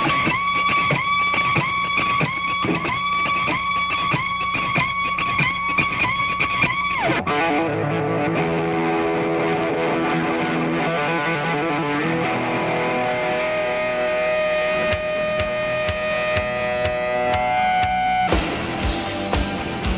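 Rock song intro on electric guitar: a pitched note pulsing about twice a second for the first seven seconds, then held chords, with drum hits coming in near the end.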